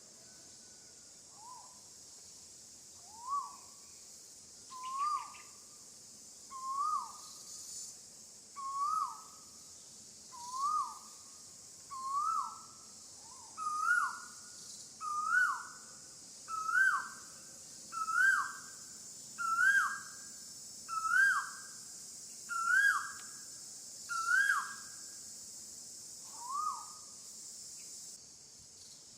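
A repeated whistled animal call, about one every second and a half, each note swooping up then down. The calls climb in pitch and loudness over the series, and a last, lower one comes near the end. A steady high insect hiss runs underneath.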